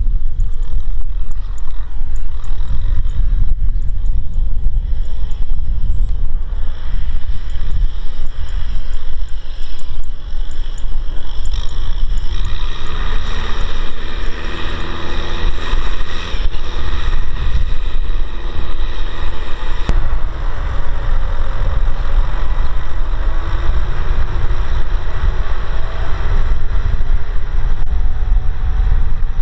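Kubota M6040SU tractor's diesel engine running under load while pulling a disc harrow through dry soil, with heavy wind rumble on the microphone. From about twelve seconds in the engine sound grows clearer and its pitch wavers up and down.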